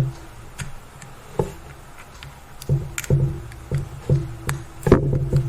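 Background music: plucked guitar-like notes with sharp percussive knocks.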